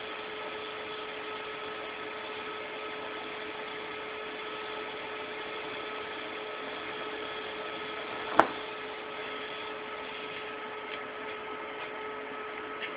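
Steady hiss and hum with two steady tones during a TIG welding pass on stainless steel with a Thermal Arc Fabricator 181 welder. A single sharp click comes about eight seconds in.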